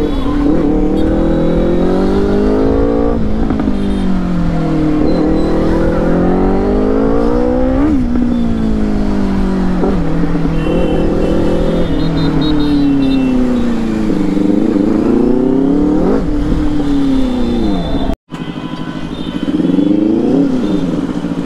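Benelli 600i inline-four motorcycle engine under way, its pitch rising and falling over and over as it is revved and shifted. The sound cuts out for an instant about 18 seconds in, then runs on a little quieter.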